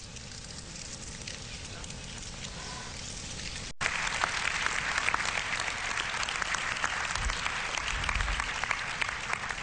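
Low murmur of a room full of people, then, after an abrupt cut about four seconds in, an audience applauding.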